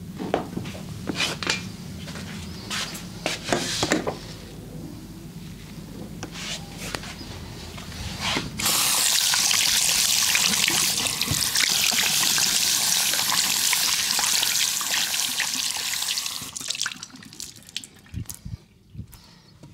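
Short rubbing and handling noises, then about eight seconds of steady running water that starts abruptly and stops near the end.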